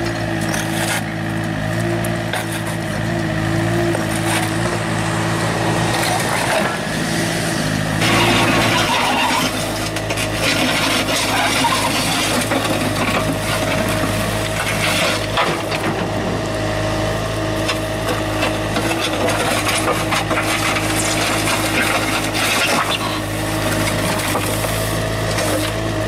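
Compact wheeled excavator's diesel engine running with a steady whine while its ripper tooth and bucket break and scrape up road asphalt, the broken chunks cracking and clattering irregularly throughout.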